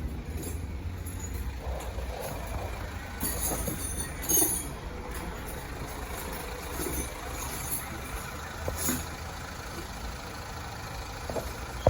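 A motor vehicle's engine running at a steady low rumble, with a few short hisses and clicks about four seconds in and again near nine seconds.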